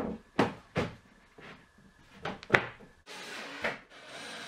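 Plywood panels knocking and clattering against each other as a side panel is fitted onto a plywood cabinet, with several sharp knocks. From about three seconds in, a steady run of a cordless drill driving a screw into the plywood.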